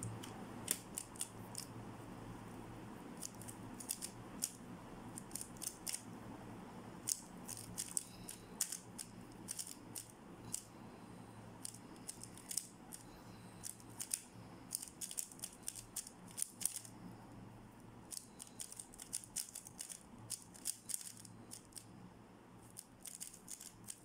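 A MoYu RS3M 2020 3x3 speed cube being turned fast: quick clusters of clicking, clacking layer turns with short pauses between them.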